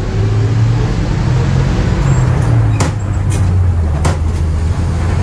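1955 Gillig school bus engine running under way, heard from inside the cab, its pitch shifting slightly between about one and three seconds in. Three sharp knocks or rattles come through near the middle.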